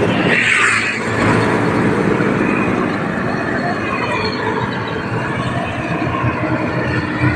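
Engine and wind rush of a moving vehicle heard from on board while riding along a road, running steadily, with a brief louder rush about half a second in.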